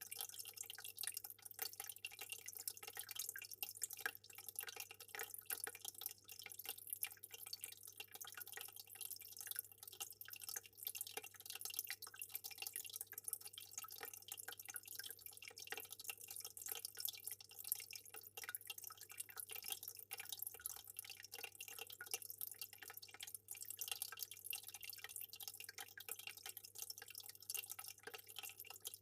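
Aquarium water trickling and dripping: a continuous fine patter of small drops over a faint steady low hum.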